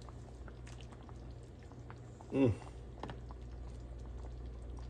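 A ladle dipping and clinking softly in a pot of thick soup, with faint liquid sounds over a low steady hum. About halfway through, a short vocal sound slides steeply down in pitch, the loudest moment.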